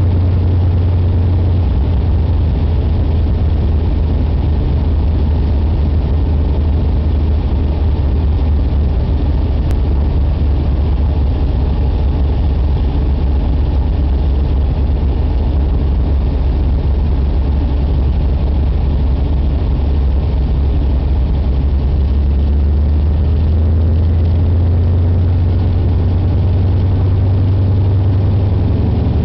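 De Havilland Beaver floatplane's engine and propeller droning steadily, heard from inside the cabin.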